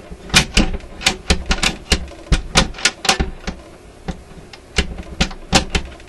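Irregular sharp clicks and knocks from the RCA Victor 65U's record player mechanism, about two or three a second at first and thinning out after about three seconds, with a few louder knocks near the end.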